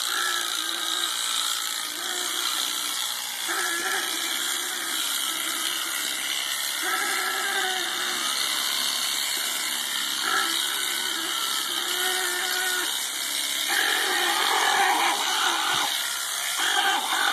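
Electric alpaca shears running steadily while the restrained alpaca cries out again and again in distress. Each pitched call lasts about a second and comes every few seconds; the last two calls are longer and louder.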